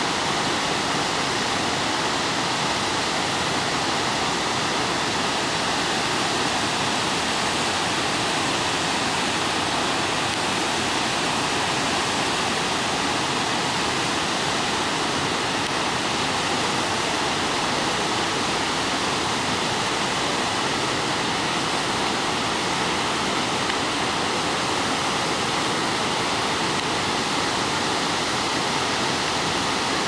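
Several waterfalls pouring over rock cascades into pools: a steady, unbroken rush of falling water.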